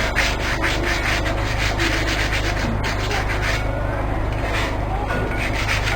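Rhythmic back-and-forth abrasive strokes on wood, about four a second, as in hand sanding, with a brief pause about four seconds in.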